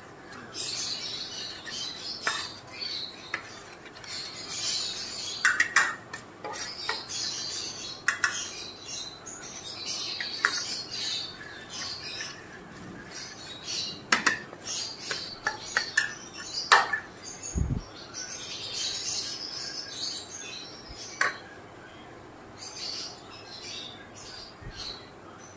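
Metal spoon stirring a flour coating batter in a steel bowl, with a few sharp clinks of the spoon against the bowl. Birds chirp on and off in the background.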